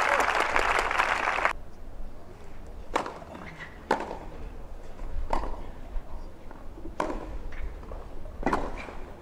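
Spectator applause that stops about a second and a half in, then a tennis rally: the serve and returns, five sharp racket strikes on the ball spaced about one to one and a half seconds apart, the last with a short grunt.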